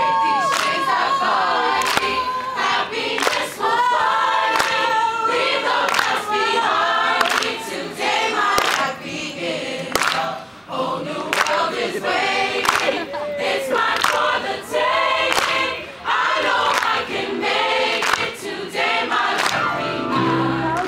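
Mixed choir of young men and women singing together, with a steady beat of sharp strokes under the voices.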